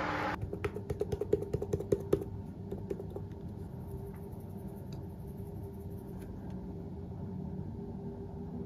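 Quick run of light plastic clicks and taps for about two seconds, thinning out to a few stray taps, as grated parmesan and dried parsley are shaken from shaker containers over spaghetti in a plastic lunch box; then only faint room tone.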